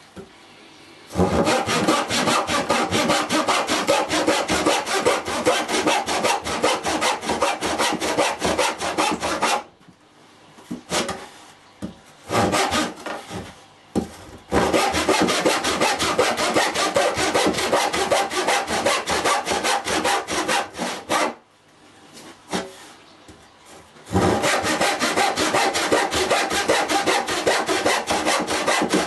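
Handsaw cutting wood in quick back-and-forth strokes, making relief cuts between the marks in the waste of a lap joint. The sawing comes in three long runs, broken by short pauses with a few stray strokes.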